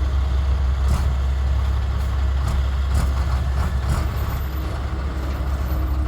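Heavy diesel engine of earthmoving machinery running steadily with a low rumble, with a few faint knocks about one, three and four seconds in.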